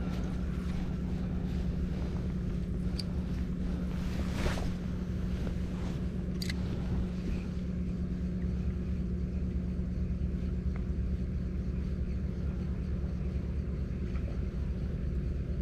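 A steady, unchanging engine drone, with a few faint clicks and knocks over it.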